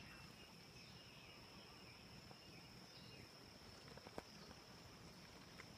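Near silence: faint outdoor ambience with a steady high-pitched insect trill and one soft click about four seconds in.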